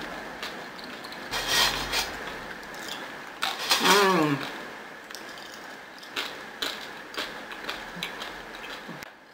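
Chewing and crunching of crisp toasted coconut chips, in a run of dry clicks and crackles. About four seconds in comes a short hummed 'mmm' that falls in pitch.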